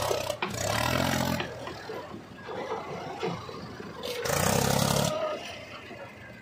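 Mahindra 275 DI tractor's three-cylinder diesel engine pulling a loaded soil trolley, revving up in two surges, about half a second in and again about four seconds in, with quieter running in between, then fading as it moves away.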